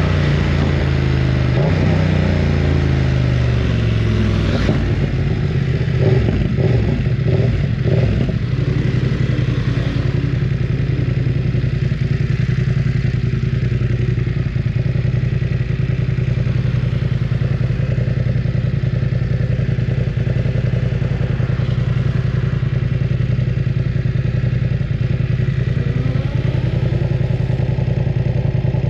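BMW F900 R's parallel-twin engine running loud, its revs falling in the first few seconds. Irregular clattering follows about five to eight seconds in. It then settles into a steady run, with a slight rise in revs near the end.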